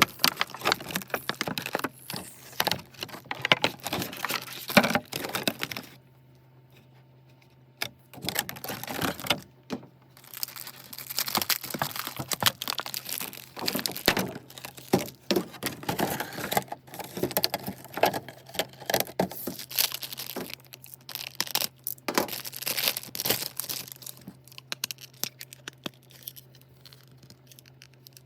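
Handling and tearing of packaging: irregular crinkling, tearing and clicking, dropping away about six seconds in and again near the end. A steady low hum runs underneath.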